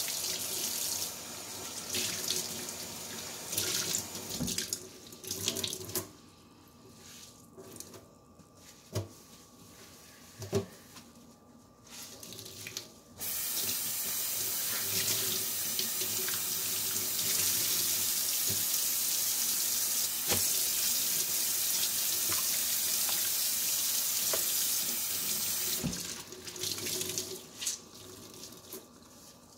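Kitchen faucet running into a stainless steel sink, the water hissing steadily, louder for a long stretch in the middle and easing off near the end. Scattered knocks come from hands scrubbing the sink while the water is quieter.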